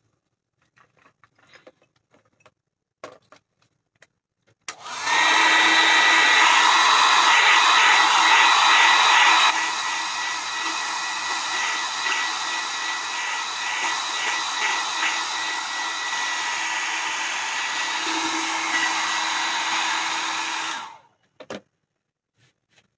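Handheld electric hot-air dryer switched on about five seconds in to dry freshly painted craft work. It blows steadily with a thin motor whine, drops to a lower setting a few seconds later, and is switched off near the end.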